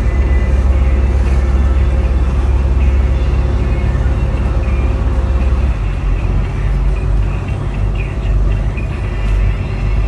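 Motorboat's engine running under way, a steady low rumble mixed with the rush of water from its wake. The deepest part of the rumble eases a little about six seconds in.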